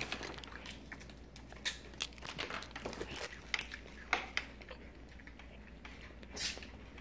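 Faint, irregular crinkling and small clicks from handling, with one short rustle about six and a half seconds in.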